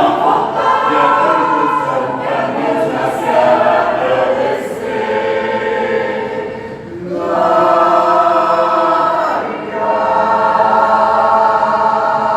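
A choir singing long sustained chords in two phrases, with a short breath between them about seven seconds in.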